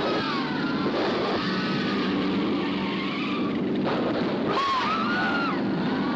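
Race car engines running under a steady dense din on an early sound-film track, with a high wavering squeal a little over four seconds in.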